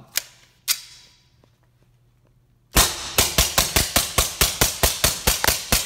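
SilencerCo Maxim 9 integrally suppressed 9mm pistol fired in a rapid string, about five or six shots a second, starting about three seconds in and still going at the end. Two sharp clicks come within the first second before the shooting.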